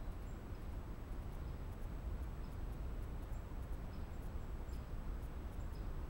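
Steady outdoor background noise: a low rumble with a hiss over it, and faint, short high chirps every second or so.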